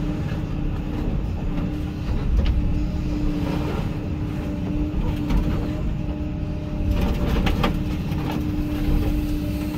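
Hyundai HX220AL excavator running with a steady engine hum and rumble, with sharp clanks and crunches of metal about two and a half seconds in and again in a cluster near the end.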